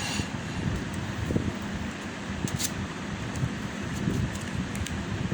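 Steady low rumbling background noise, with a few faint sharp clicks.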